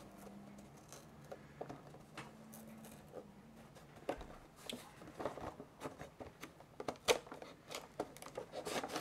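An action figure's cardboard-and-plastic packaging being cut and pried open by hand: irregular snips, clicks and rustles, sparse at first and busier from about four seconds in.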